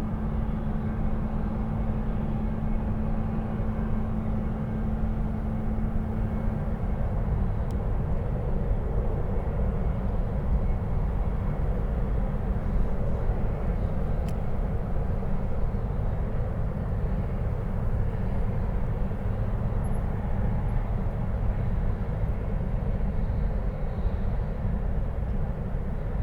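Distant oil refinery heard from nearly a mile away: a steady low rumble and hiss of industrial noise, with the sound of its burn-off flares in it. A steady low hum in the mix stops about seven seconds in.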